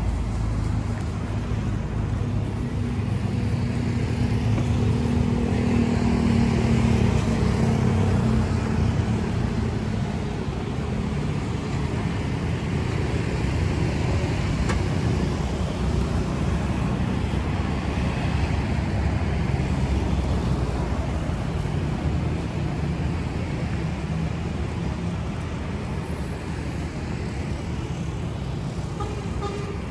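Steady road traffic: cars and other motor vehicles running past, engine and tyre noise, swelling as a vehicle passes close a few seconds in.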